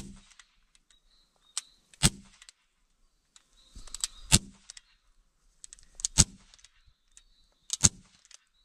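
Beretta Elite 92 CO2 air pistol firing 4.5 mm steel BBs into a 6 mm fiberboard target: five sharp cracks roughly two seconds apart, each with a small click just before it.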